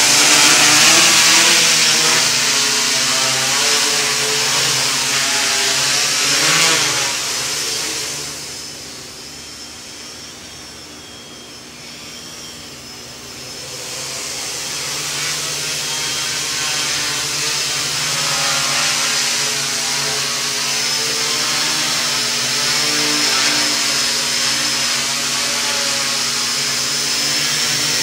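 Quadcopter with four KDA 20-28M brushless motors and 10-inch Gaui props buzzing while it hovers, the pitch wavering as the throttle corrects. The sound grows quieter about eight seconds in, then rises again from about fourteen seconds.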